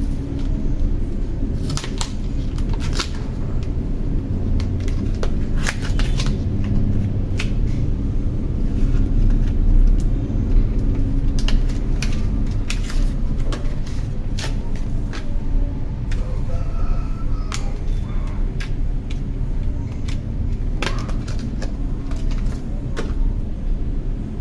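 Steady low rumble of background noise, with scattered small clicks and taps from handling the phone's parts while a replacement battery is fitted.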